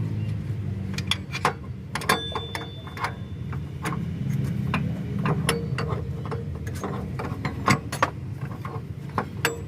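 Metal hand tools clicking and clinking on engine-mount and tensioner bolts, in irregular sharp clicks, over a steady low hum.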